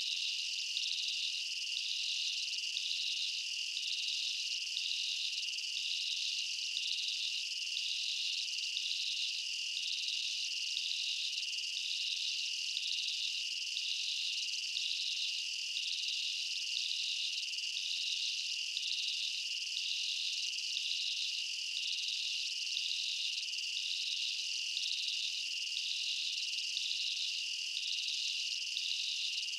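Insect chorus: a steady high trill with a second, slightly higher layer that pulses on and off at an even rhythm.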